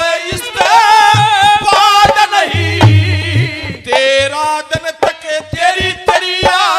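Haryanvi ragni folk song performed live: a man singing with a wavering, ornamented melody, accompanied by harmonium and dholak drum strokes.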